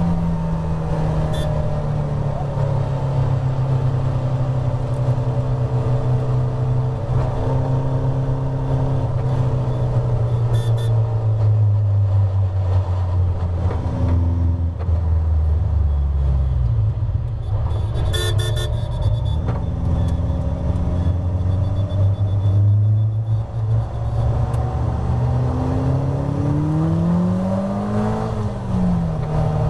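Caterham Seven Roadsport race car's four-cylinder engine heard onboard, its note falling as the car brakes hard from high speed into a corner, then rising again as it accelerates out, with a quick rev rise and drop near the end as it changes up a gear. A brief sharp knock sounds about midway.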